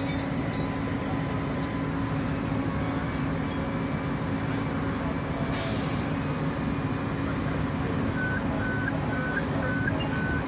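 Vehicle engine idling steadily, heard from inside the cab. A short hiss comes about halfway through, and near the end there are five short high beeps, about two a second.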